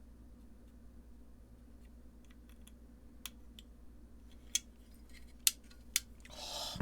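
Scattered small clicks and taps of hardware and a 10 mm socket as nuts are snugged down on a guitar-pedal enclosure, over a faint steady hum. The clicks come mostly in the second half, followed by a short hissing rustle just before the end.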